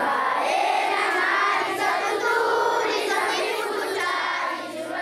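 A large group of schoolchildren singing together in unison, a chorus of many young voices.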